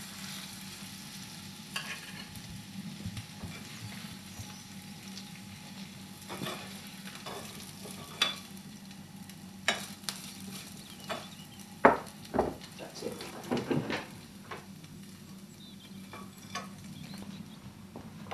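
Garlic mushrooms and breadcrumbs sizzling in a frying pan as the breadcrumbs dry down to crisp, stirred with a spatula that scrapes and knocks against the pan. The knocks are scattered, the loudest about twelve seconds in.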